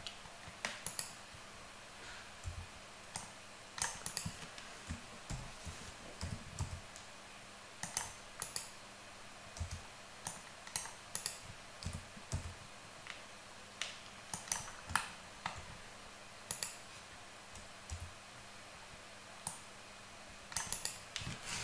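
Computer keyboard keys and mouse buttons clicking at irregular spacing, single clicks and quick pairs about one or two a second, as Blender shortcuts are pressed.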